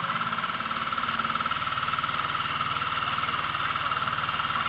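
Small boat's motor running steadily under way, with an even, fast pulsing.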